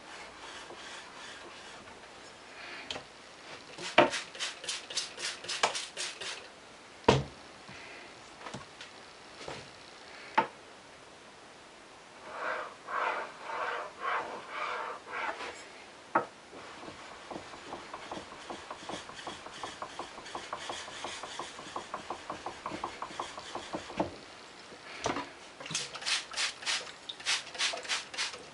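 A flat sharpening stone rubbed back and forth on a wet flat surface: runs of gritty scraping strokes, one run quick and even, with a few single sharp knocks in between.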